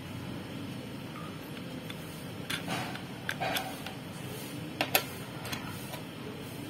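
Light plastic clicks and taps from a wireless mouse's battery cover and nano USB receiver being handled on a desk. They start about two and a half seconds in, and the sharpest pair comes near five seconds, over a steady low hum.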